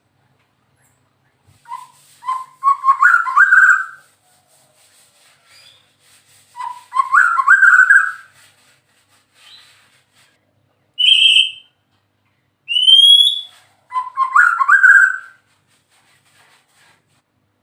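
White-rumped shama singing, phrase after phrase with short pauses between. Three rich whistled phrases climb in pitch, and in between come a short sharp note and a rising slurred whistle.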